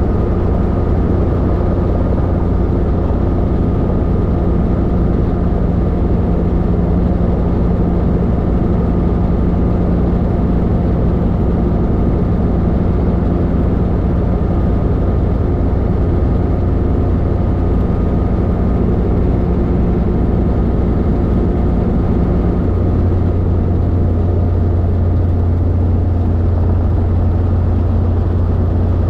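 Robinson R22 helicopter's piston engine and rotors running steadily as heard from inside the cockpit, a loud, even drone. About three-quarters of the way through, one of its tones drops out and the low hum changes.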